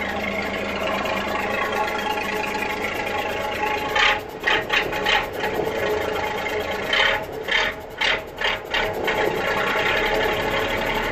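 MAN 22.190 truck's diesel engine idling steadily. Two clusters of knocks and rattles come over it, about four seconds in and again from seven to nine seconds.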